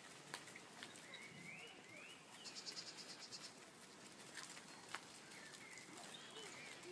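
Faint birdsong in woodland: a couple of short rising calls and then a quick high trill, with a few sharp clicks.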